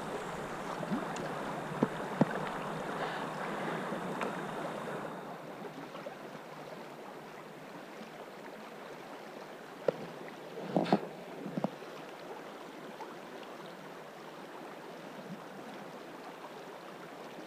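Steady rush of a fast-flowing river, a little louder for the first few seconds, with a brief cluster of short knocks and clicks about ten to twelve seconds in.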